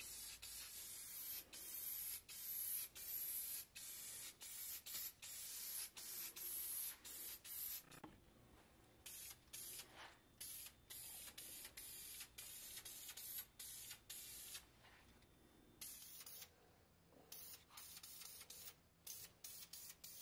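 Red spray paint hissing from the nozzle in many short bursts with brief pauses between them, fainter for a stretch in the middle.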